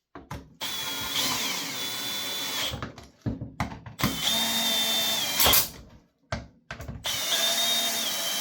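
Power drill running three times in short bursts, driving Torx-head bolts into a leaf blower's plastic housing. Its motor whine shifts in pitch as each bolt runs in.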